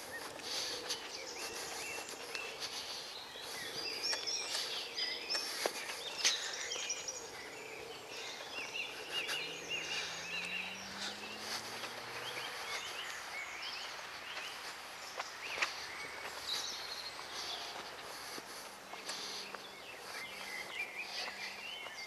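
Woodland birdsong: several birds singing and calling at once in short overlapping chirps and trills, with a few soft clicks.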